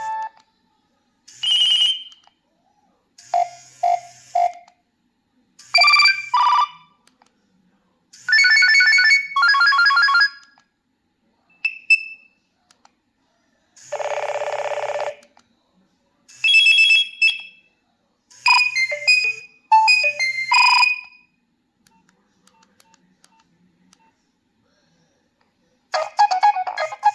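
A Nokia 3120b mobile phone playing its preloaded tones one after another: short electronic jingles and beeps, each a second or two long with silent gaps between them, and a steady buzzy tone about halfway through. A longer melody of many notes starts near the end.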